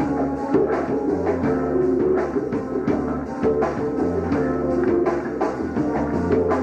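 Live band playing: electric guitar and saxophone over drums, with a regular beat and sustained low notes.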